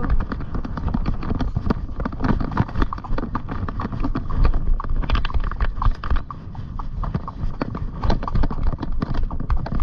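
A pony's hooves striking the ground in a steady run of hoofbeats.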